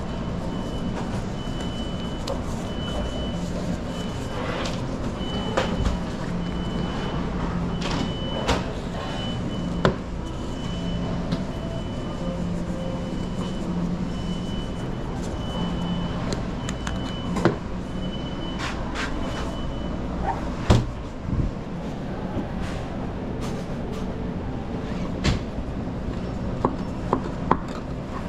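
Busy kitchen noise: a steady rush with a low hum, a high electronic beep repeating about once a second that stops about twenty seconds in, and scattered knocks and clatter of utensils and doors.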